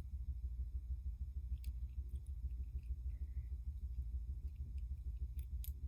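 Steady low rumble of background room noise, with a few faint clicks from a toy being handled, about a second and a half in and twice near the end.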